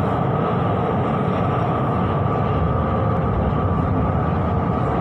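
Train running through a tunnel: a steady rumble with a constant high whine over it.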